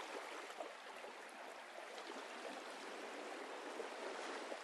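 Steady running-water noise, like a small stream.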